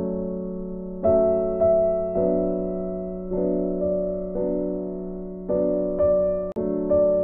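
Background piano music: slow, gentle chords, each struck and left to fade.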